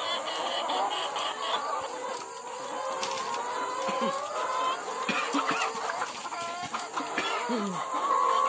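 Caged laying hens clucking, several calls overlapping and wavering in pitch throughout.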